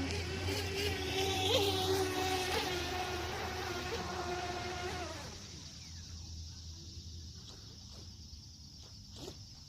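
Radio-controlled racing boat's motor whining steadily, with a few brief pitch swings, then dying away about five seconds in. A steady high chirring of crickets is left after it.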